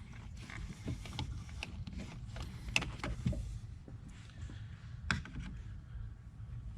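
Hands working a rubber hose and clamp onto a fitting: scattered light clicks and knocks, the sharpest about three seconds in and near the end.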